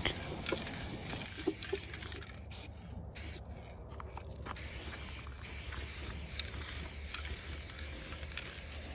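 Aerosol spray-paint can fitted with a fat cap, hissing in long sprays with a few short breaks about a third of the way in. The painter complains of a line that is far too thick and uneven pressure from the can.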